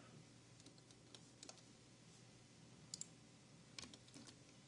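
Faint, scattered clicks from a computer mouse, about eight in all with short gaps between them, over near silence.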